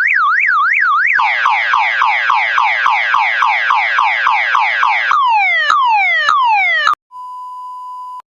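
Car alarm siren cycling through its tones: a fast up-and-down warble about four times a second, then quick falling sweeps at a similar rate from about a second in, then a few slower falling whoops. It cuts off near the end and is followed by a steady electronic beep about a second long.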